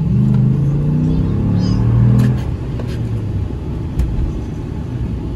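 2018 Ram 1500 pickup's engine under hard acceleration from about 25 to 50 mph, heard from inside the cab: the engine note climbs with the revs and is loudest about two seconds in, then eases off to a steadier drone with road noise.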